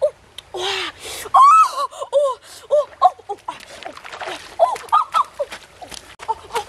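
A string of short, high-pitched arching cries, one after another, over splashing and sharp knocks of a stick digging among the stones of a shallow stream bed.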